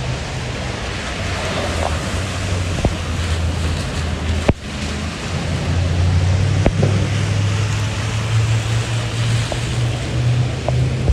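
Traffic on rain-soaked streets: tyres hissing over wet pavement, with a steady low engine hum from passing vehicles. A single sharp click comes about four and a half seconds in.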